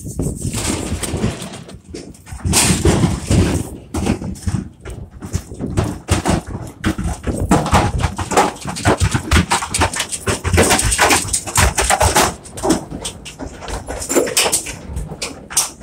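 Cattle hooves clattering and knocking on the floor and walls of a Wilson stock trailer as a group of cows is driven aboard, a dense run of irregular knocks and rattles.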